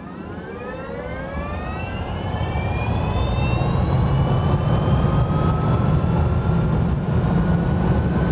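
Jaguar I-Pace accelerating: a whine of several tones rising in pitch and gradually levelling off, over a low rumble, growing louder through the first half and then holding steady.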